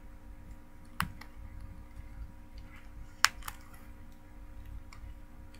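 Paper Pumpkin cardboard kit box being opened by hand: a few sharp clicks and snaps, the loudest just past three seconds and another about a second in, with fainter taps and light rustling between, over a faint steady hum.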